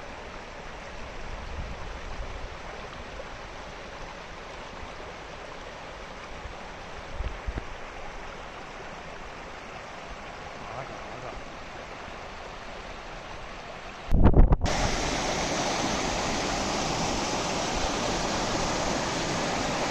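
Steady rush of running water, like a waterfall or stream. About 14 seconds in it cuts with a thump to a louder, brighter rush of water.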